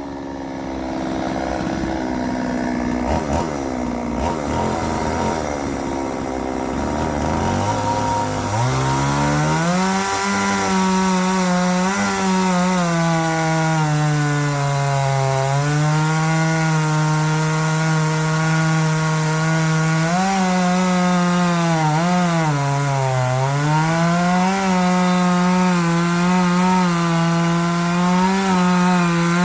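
Petrol two-stroke chainsaw running with a sharpened chain. It runs low and uneven for several seconds, revs up sharply about a quarter of the way in, and then cuts through dry hardwood at high revs. Its pitch sags a couple of times as the chain loads up in the cut.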